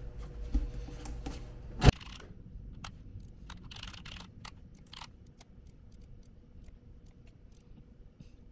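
Handling noises: a sharp knock about two seconds in, then brief rustling and light clicks that thin out to faint ticks.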